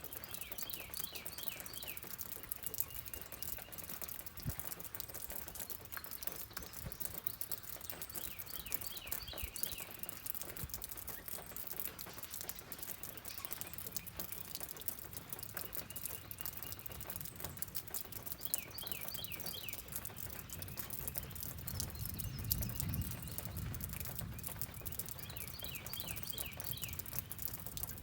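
Steady rain pattering, with a bird singing a short phrase of quick notes about every nine seconds. A low rumble swells briefly about three-quarters of the way through.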